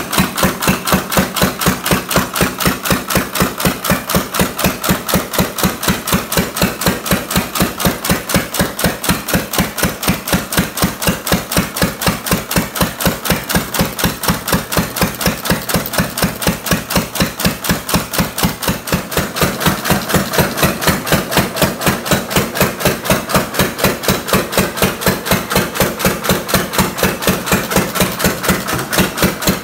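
1-1/2 HP Field & Brundage single-cylinder throttle-governed hit-and-miss-era engine running on its magneto, firing with a quick, even beat of several sharp exhaust pops a second. It is running fast in extreme cold and is not yet slowed down or fine-tuned.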